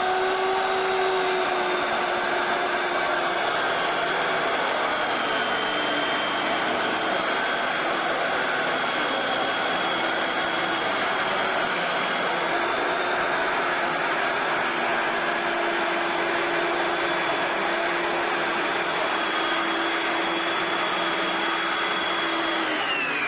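Corded circular saw running steadily through a long cut in a plywood panel, its motor whine holding one pitch over the noise of the blade in the wood. Right at the end the whine falls away as the saw winds down.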